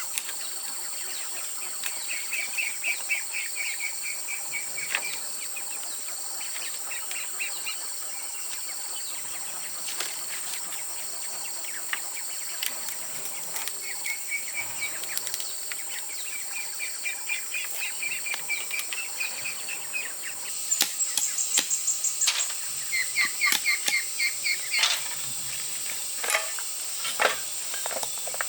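Forest ambience: insects making a steady high buzz while birds repeat short trilled calls over and over. In the last several seconds louder pulsed calls come in, along with a few sharp clicks or knocks.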